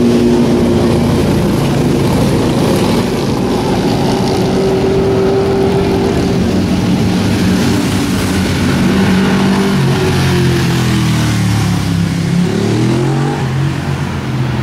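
Motorcycles and cars passing on a city street, several engines running at once at steady pitch; near the end one engine glides up and back down in pitch as it revs.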